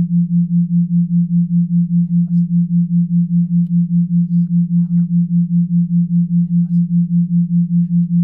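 Low, steady electronic sine tone pulsing in volume about four times a second: an isochronic tone of the kind used in hypnosis tracks.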